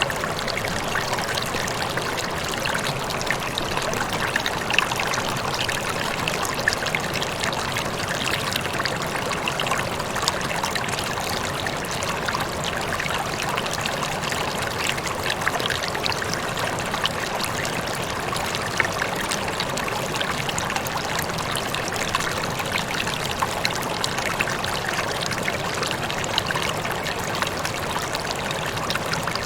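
Water rippling and trickling steadily, with a constant splashing babble.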